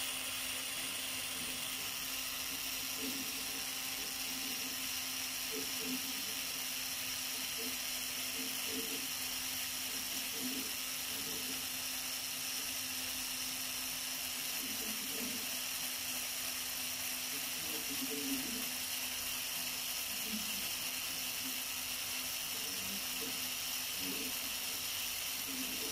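Cordless drill motor running steadily as its bit bores into the metal body of a hydraulic brake lever, an even whine that holds the same pitch.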